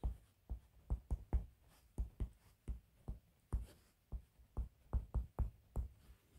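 Stylus tip tapping on a tablet's glass screen during handwriting: an irregular run of short, sharp ticks, about four a second.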